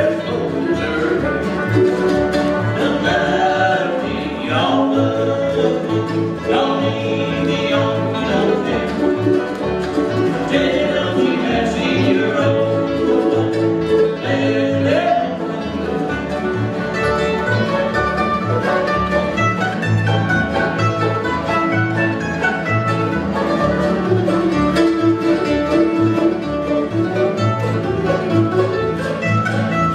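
A bluegrass band playing live on banjo, mandolin, two acoustic guitars and upright bass, the bass plucking a steady beat. Voices sing over it through roughly the first half.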